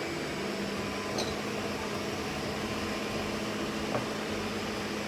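Countertop blender motor running steadily, blending orange soda, vanilla ice cream and orange sherbet into a smooth shake.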